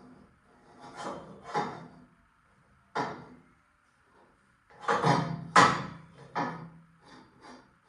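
A series of irregular knocks and clunks, about eight in all, as steel tubing is handled and set down on a work surface; the sharpest and loudest come about three seconds and five and a half seconds in.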